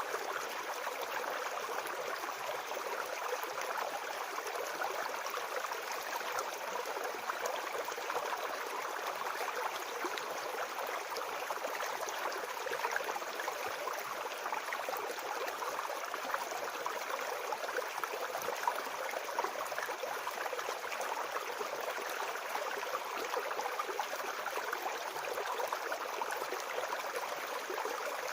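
Small brook flowing steadily over stones, a constant babbling, gurgling rush of water.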